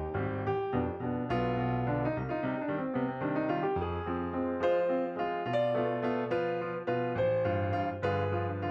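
Background piano music: a melody with chords, in notes struck one after another.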